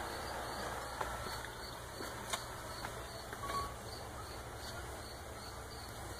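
Quiet, steady low hum with a few faint clicks, about one, two and a half, and three and a half seconds in.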